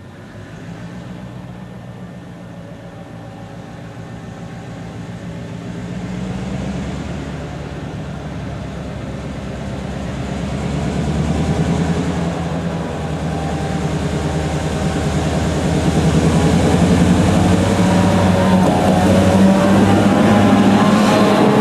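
SNCB diesel locomotive with a GM two-stroke engine approaching, its engine drone growing steadily louder over about twenty seconds.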